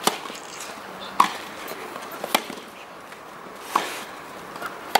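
Tennis racquets striking the ball in a rally on a grass court: a serve, then four more sharp cracks about every one and a quarter seconds as the players trade shots.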